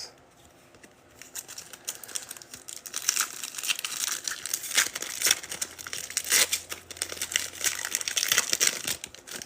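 Foil trading-card pack wrapper being torn open and crinkled: a dense run of crackling and small clicks starting about a second in.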